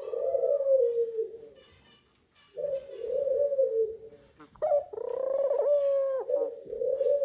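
Male collared dove giving its nest call: a series of about four low coos with short pauses between, the third the longest. It is the courtship call a male makes from the nest to call the female to it.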